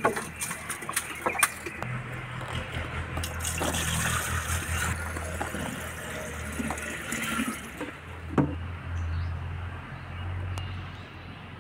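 Water poured from a plastic bucket into a clay water pot, splashing and filling it for about five seconds, with a few clicks before the pour and a single knock after it.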